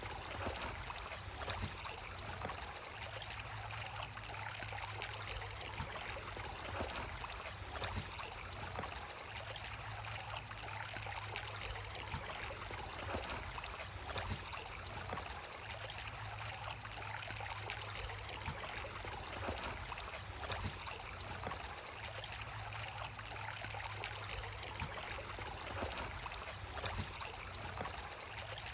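Stream water running steadily: an unbroken rush of flowing water.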